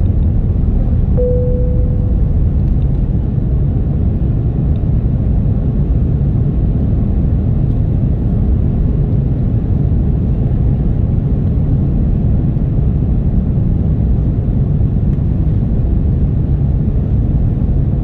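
Airliner cabin noise: a steady, even rumble of engines and airflow heard from inside the passenger cabin, with a single short fading chime tone about a second in.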